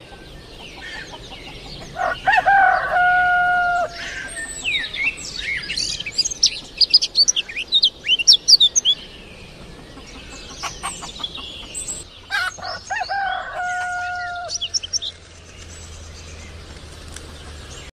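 A rooster crowing twice, about ten seconds apart, with small birds chirping rapidly in between.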